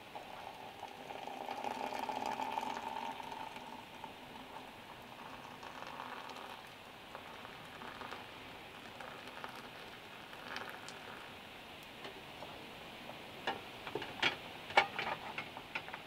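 Water pouring from a kettle into a mug, a steady trickling stream that is loudest in the first few seconds and then softer. Near the end come several sharp clicks and knocks.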